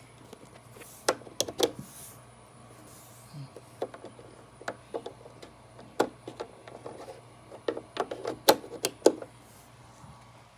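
A run of irregular sharp clicks and knocks from hard objects being handled, over a faint steady low hum.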